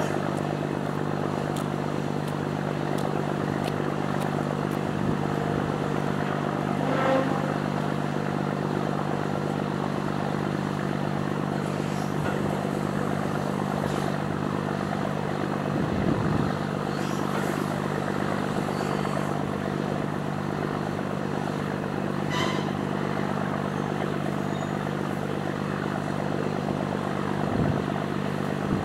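A ship's engine running with a steady low drone, with a few brief knocks over it.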